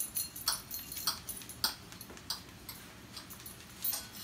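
A kitchen knife cutting vegetables on a plate or cutting board: light, sharp taps at an uneven pace, about two a second.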